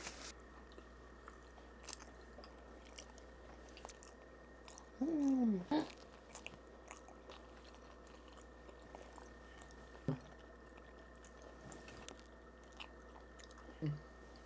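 Faint mouth sounds of a person chewing and biting a bagel, with small ticks and pauses. About five seconds in there is one short falling vocal sound, and there is a light knock near ten seconds.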